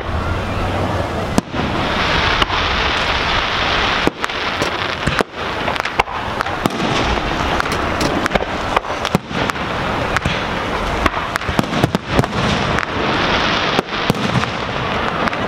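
Aerial firework shells launching and bursting: a series of sharp bangs about every second over a steady hiss.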